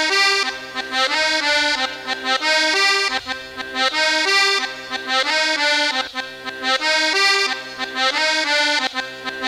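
Recorded Latin dance music led by an accordion, playing a melody in short phrases that repeat about once a second over a steady bass line.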